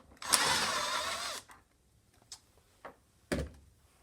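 Cordless drill running for just over a second, backing a screw out of the wooden bench top, its whine falling as it stops. A couple of light clicks and a knock follow near the end.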